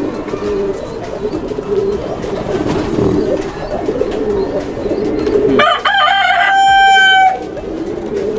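Caged domestic pigeons cooing steadily. About five and a half seconds in, a loud crowing call breaks in, wavering at first and then held on one pitch for about a second before it cuts off; it is the loudest sound here.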